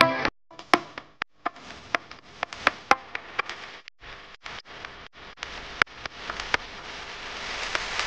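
Irregular sharp clicks and taps, roughly two a second, over a faint hiss that slowly grows louder toward the end.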